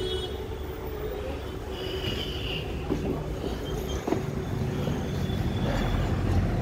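Kolkata tramcar running on its rails, heard from inside the car: a steady low rumble, with a few sharp knocks from the wheels and track.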